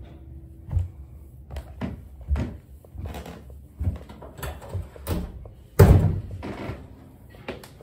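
A series of irregular knocks and thumps, some with a scuffing rustle, with one loud bang about six seconds in.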